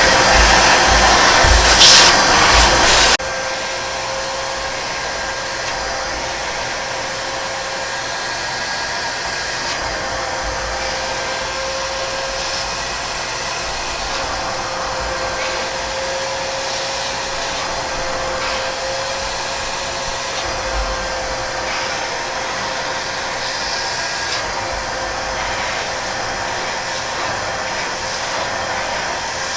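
Fujihama 1200 W wet/dry vacuum cleaner's motor running. About three seconds in, the louder, rougher sound suddenly drops to a steadier, quieter drone with a steady whine.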